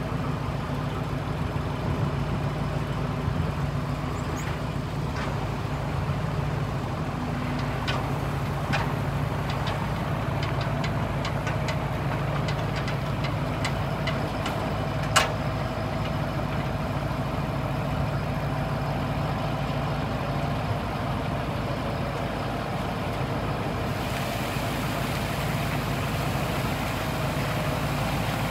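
Diesel engine of a GMC dump truck idling steadily while the hydraulic dump bed is raised. A single sharp click about halfway through, and a little more hiss near the end.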